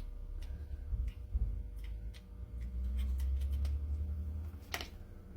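Scattered light clicks and handling noises from small plastic parts and a cable being handled, over a low rumble, with one sharper click near the end.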